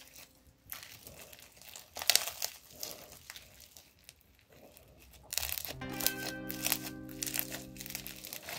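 Crunchy slime mixed with polystyrene beads being squeezed and folded by hand, giving irregular crackling and crunching pops. Background music with steady sustained notes comes in louder near the end.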